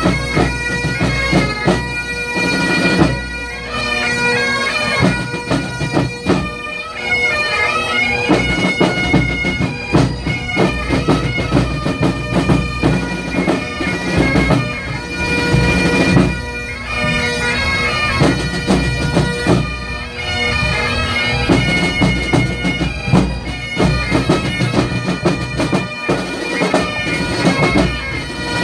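Pipe and drum band playing: Highland bagpipes sound a melody over their steady drones, with drum strokes running underneath.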